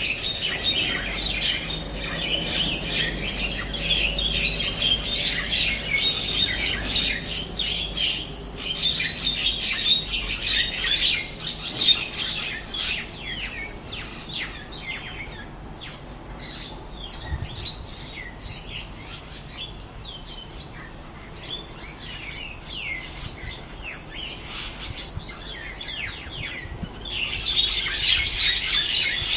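Several small birds giving rapid, harsh chirps and squawks over one another, the squabbling calls of birds fighting over territory. The calling is densest in the first half, thins out in the middle and picks up again near the end.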